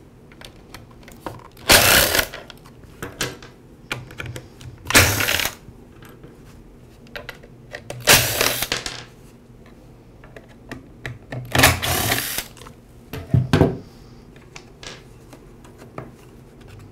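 Cordless electric screwdriver running in short spurts as it backs out the screws of a string trimmer's plastic rear engine cover: four runs of under a second each, a briefer fifth, with small clicks and taps of handling between.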